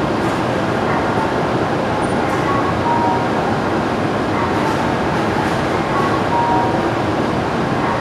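Steady noise on a Shinkansen platform around a standing train, with short, faint high tones sounding now and then.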